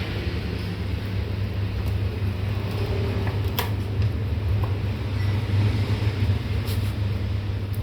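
A steady low mechanical hum with a light hiss, broken by two or three faint sharp clicks.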